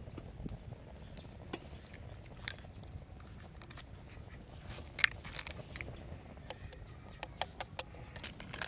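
Scattered sharp clicks and taps of eggs being cracked into a clay pan over a wood fire and a knife stirring them against the pan, with one louder click about five seconds in and a run of quick taps near the end.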